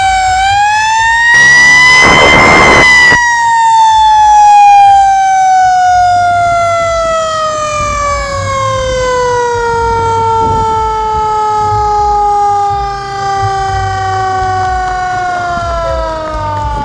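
A fire engine's siren winding down, one long tone that rises briefly and then falls slowly and steadily in pitch, typical of a mechanical siren coasting to a stop. A loud burst of rushing, hissing noise cuts in about a second and a half in and lasts nearly two seconds.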